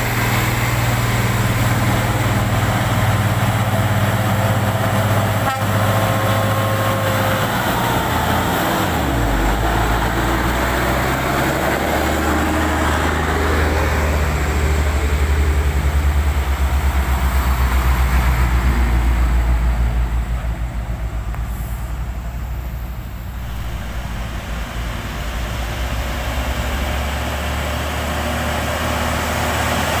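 Heavy diesel trucks passing close by one after another, their engines running under load. The deep engine note shifts lower about nine seconds in, grows loudest with a pulsing beat as a Hino tanker truck goes by, dips briefly and then rises again as the next truck approaches.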